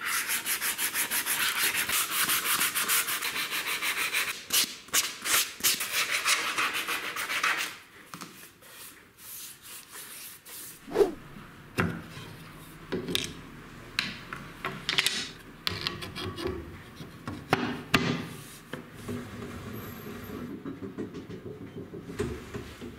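Hand sanding wood with a sandpaper-faced block, rapid back-and-forth strokes for the first seven or so seconds. After that come quieter, intermittent rubbing and a scattering of sharp knocks as a wooden throat-plate insert is handled on the table saw top.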